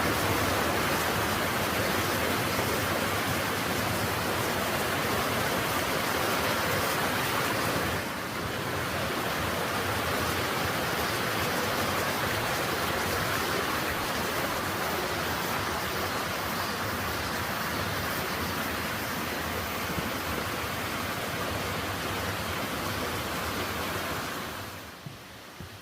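Steady rushing water, an even hiss with no distinct splashes. It dips briefly about eight seconds in and falls away sharply shortly before the end.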